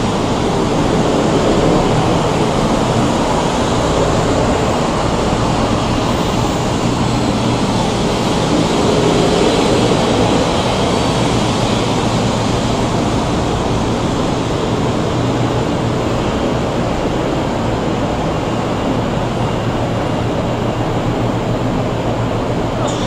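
100 series Shinkansen train running on the rails: a loud, steady rumble and rush of running noise that holds evenly throughout.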